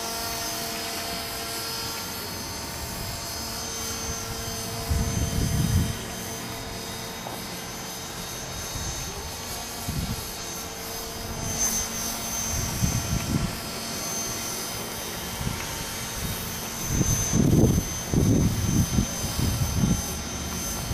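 Belt CP electric RC helicopter whining steadily as it flies, with gusts of wind rumbling on the microphone several times, the heaviest near the end.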